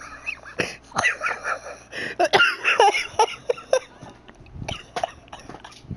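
A person laughing hysterically in high-pitched, wheezing bursts, loudest around the middle.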